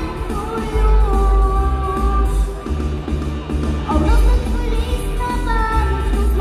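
A female voice singing a pop-style Christmas song over a backing track with a strong bass line. The vocal line pauses briefly near the middle, then comes back.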